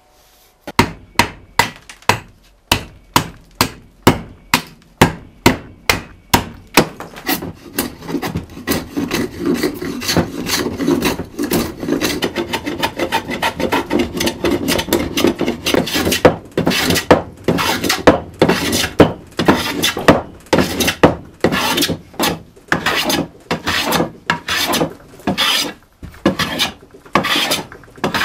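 Japanese pull saw cutting an oak plank in even strokes about twice a second, followed by a hand plane taking shavings off an oak block in repeated strokes.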